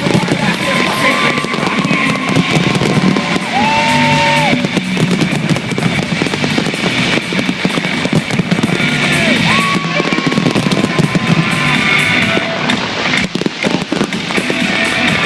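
Fireworks banging and crackling in rapid succession over loud music from the display's sound system.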